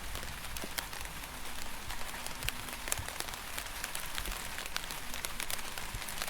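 Steady rain falling, a continuous hiss dotted with the sharp ticks of many individual drops hitting a surface.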